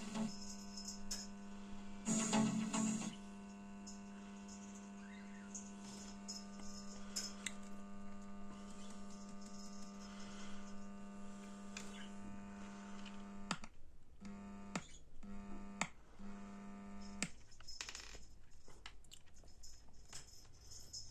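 Mains hum from a BD424 amplifier: a steady buzzing tone with a stack of overtones. It breaks off a few times about 13 to 17 seconds in and then stops, with scattered clicks along the way.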